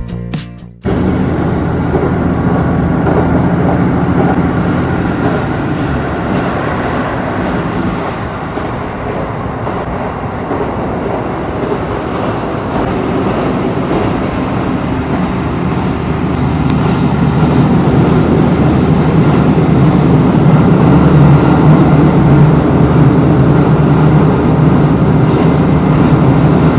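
Train running, heard from inside the carriage: a steady rumble of the running gear on the rails, getting louder about two-thirds of the way through.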